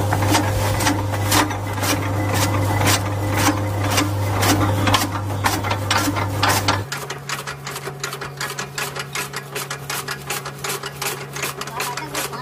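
Motor-driven chaff cutter with a large flywheel chopping green fodder: a steady hum under quick, regular chopping clicks from the blades. About seven seconds in the sound drops and the chops come faster.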